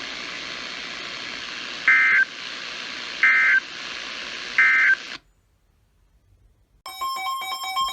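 Radio receiver hiss carrying the Emergency Alert System end-of-message code: three short, warbling data bursts about 1.3 seconds apart, marking the end of the tornado warning. About five seconds in the hiss cuts off suddenly, and near the end a buzzy, choppy electronic alert beep starts.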